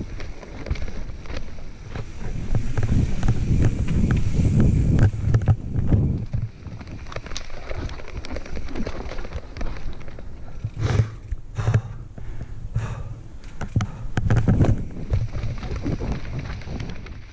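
Santa Cruz Nomad mountain bike riding down rough, rocky singletrack: tyres crunching over dirt and stones, with the bike clattering over roots and rocks and several harder knocks in the second half.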